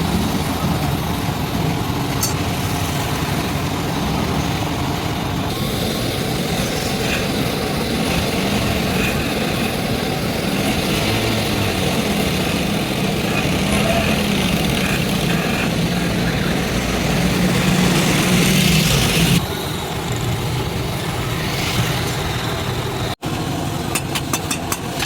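Steady running of a motor vehicle engine with street noise around it; the background changes abruptly twice.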